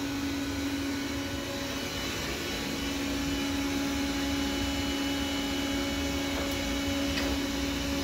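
Roborock S4 robot vacuum running at full power: a steady motor and suction hum with a constant tone through it.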